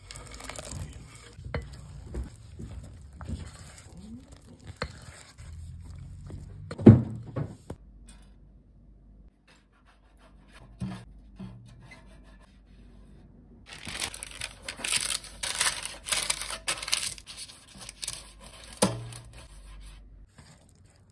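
A spatula scrapes and stirs chopped chocolate into thick brownie batter in a bowl, with one sharp knock against the bowl about seven seconds in. Later, a silicone pastry brush rubs over a metal baking pan and parchment paper crinkles loudly for several seconds as it is pressed and brushed into the pan.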